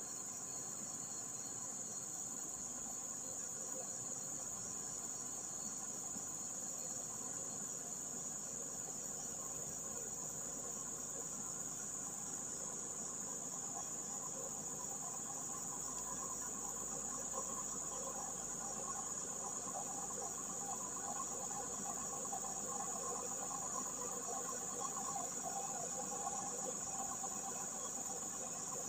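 Steady, high-pitched, unbroken drone of forest insects. A distant truck engine is heard faintly underneath and grows a little louder in the second half as the truck comes closer.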